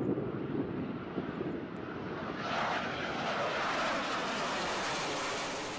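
Jet engines of two MiG-29 fighters, twin RD-33 turbofans each, passing low overhead. A rushing hiss grows louder and brighter about two and a half seconds in, and its pitch falls as the jets go by.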